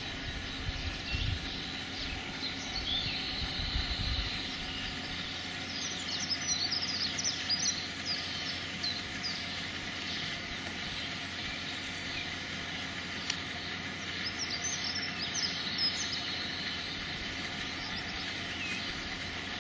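Outdoor ambience: birds chirping and singing over a steady engine-like hum, with some low rumbling in the first few seconds.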